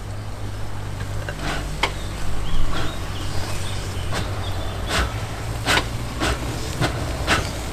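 Small narrow-gauge steam locomotive rolling slowly along the track: a low steady rumble with a string of sharp clicks and knocks, about one every half second to second. A few faint bird chirps about three seconds in.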